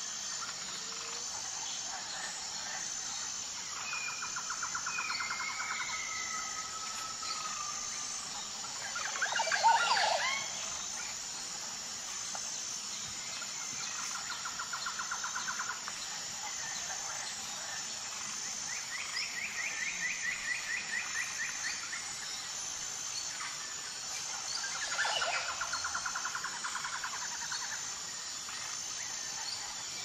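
Forest ambience: birds giving several rapid trills of about two seconds each, with a louder sweeping call about ten seconds in, over a steady high insect chirring.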